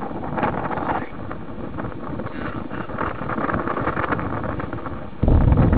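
Wind rushing and buffeting on a phone microphone in the open. About five seconds in it suddenly turns into a louder, deeper rumble.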